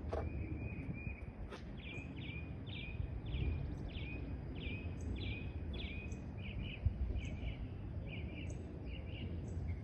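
A songbird singing a long series of short, repeated down-slurred notes, about one or two a second, with the notes coming in quicker pairs in the second half. Underneath is a steady low outdoor rumble.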